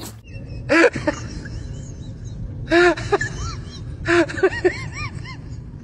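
A dog giving short, high yelping whines in bursts, each call rising then falling in pitch, with three louder bursts about a second, three seconds and four seconds in.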